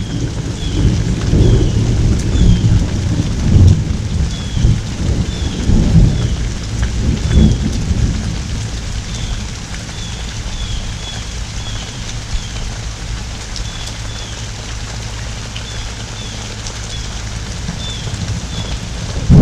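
Heavy rain pouring steadily while thunder rolls in low rumbles, strongest in the first half and easing into a steadier downpour later on.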